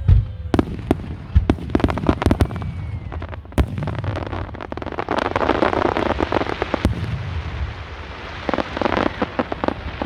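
Aerial fireworks display: a rapid series of sharp bangs from bursting shells, with dense crackling about five seconds in and again near the end.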